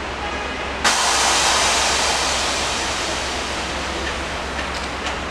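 A loud hiss starts suddenly about a second in and slowly fades, over a steady low hum.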